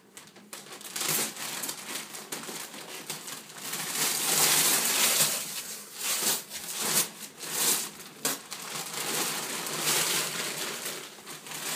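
Christmas wrapping paper being torn and crumpled off a large present by a child's hands, in a string of irregular rips and rustles that are loudest around the middle.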